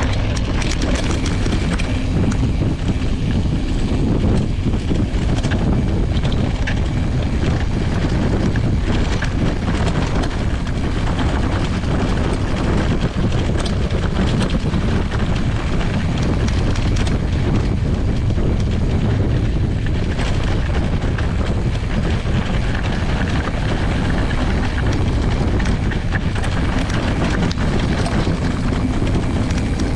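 Knobby front tyre rolling over a dirt and gravel track, with steady wind rumble on the microphone and many small ticks and rattles from the ride.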